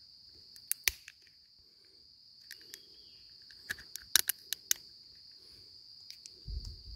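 Insects giving a steady, high, continuous drone, with scattered sharp clicks and taps, a little cluster of them about halfway through, and a short low rumble near the end.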